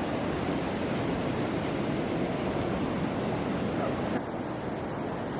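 Ocean surf washing steadily on a beach, with some wind. The sound drops a little and turns duller about four seconds in.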